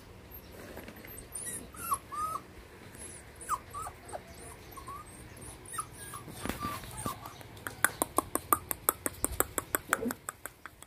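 Puppies whimpering and whining in short, high, wavering calls. Near the end comes a quick run of sharp clicks, about five a second, the loudest sounds here.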